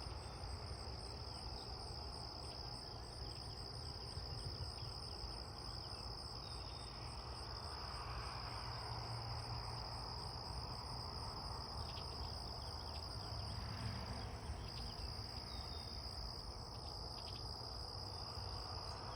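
Steady insect chorus: one unbroken high trill with a faster pulsing trill above it, over a low steady rumble.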